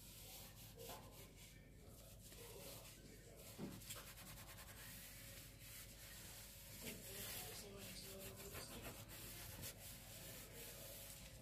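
Faint rubbing and scraping of flour-coated raw chicken pieces moving in a plastic mesh sieve, with a few light taps.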